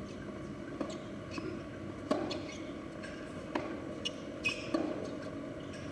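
Tennis ball impacts: several sharp knocks about a second apart over a steady background hiss.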